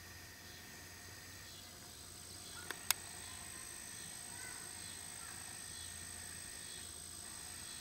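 Faint outdoor field ambience: a steady high-pitched insect drone over a soft hiss, broken by two sharp clicks a fraction of a second apart about three seconds in.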